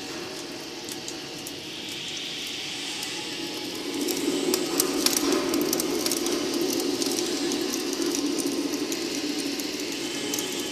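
Campfire burning: wood crackling and popping over a steady rushing of flame, louder from about four seconds in.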